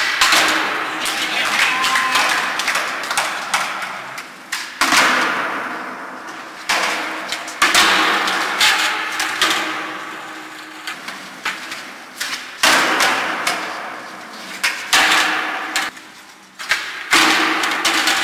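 Skateboards on smooth concrete: sharp pops and board landings slapping down several times, each followed by wheels rolling and fading away. Everything echoes off the hard walls of an underground car park.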